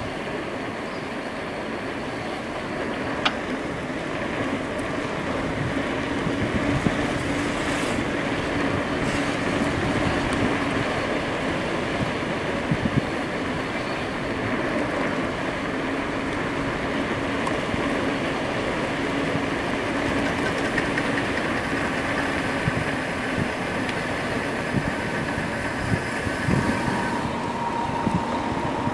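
A2B Metro electric bike riding along a street: steady wind and road noise, with faint steady tones over it that shift higher about two-thirds of the way through and drop in pitch near the end.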